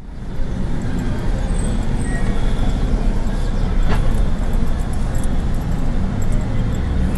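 Vehicle driving along a street: a steady low rumble of engine and road noise, with one sharp click about four seconds in.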